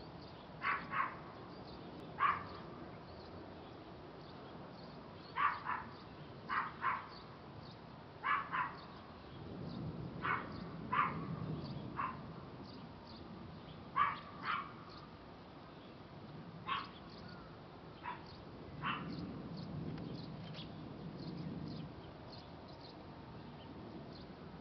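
A dog barking: short sharp barks, often in quick pairs, about a dozen spread over some twenty seconds.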